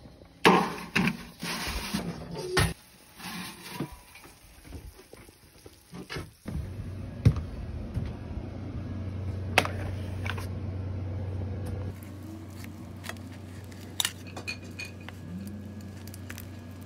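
Kitchen handling noises: a metal sheet pan and utensils clinking and knocking in short, sharp clicks, with a steady low hum through the middle.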